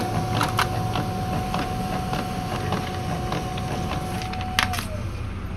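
HP Laser MFP 1188a laser printer running a test print: a steady motor whine with a low hum and a few light clicks, then the whine falls away with a sharp click near the end as the motor winds down. It runs free of the knocking noise it made after toner refilling.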